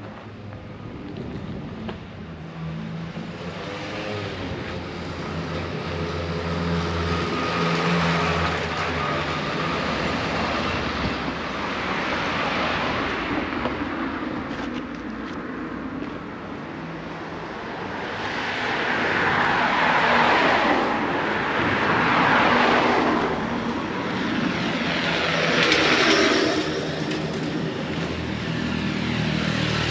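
Motor vehicles on the road, cars and a motorbike: an engine hum in the first half, then several louder passes, each swelling and fading as a vehicle goes by, most of them about two-thirds of the way through.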